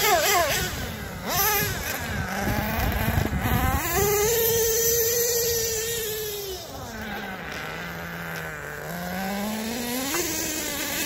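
Small nitro glow engine of a Red Cat Earthquake 3.5 RC monster truck revving up and down as it is driven. There is a quick rev about a second in, a long high-speed run that then falls to low revs, and a climb again near the end.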